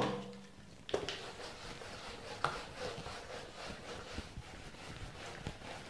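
Whiteboard duster rubbing across a whiteboard in quick back-and-forth strokes, a few a second, faint. A sharper knock about a second in.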